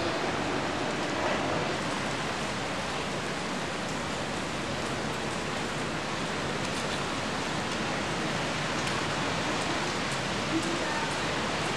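Steady hiss of rain falling on wet cobbled pavement.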